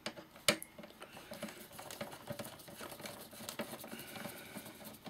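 A small screw being undone from a Sansui AU-X111 amplifier's case: light irregular clicks and scratches of the tool on the screw, with one sharper click about half a second in.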